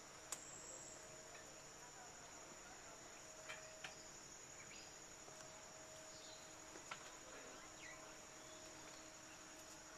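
Faint, steady high-pitched insect trill in rain forest, with a few faint clicks.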